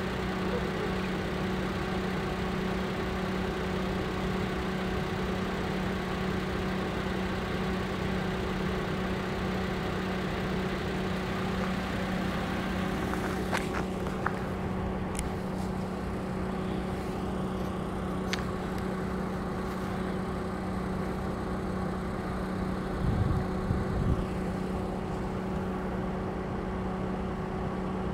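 Steady hum of an engine idling, holding one low pitch, with a few faint clicks about halfway through and a couple of brief low thumps near the end.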